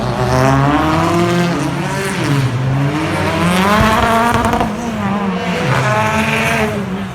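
British Touring Car Championship race cars' turbocharged four-cylinder engines revving hard as they pass, more than one car at once. The pitch climbs under acceleration and drops sharply at each gear change, several times over.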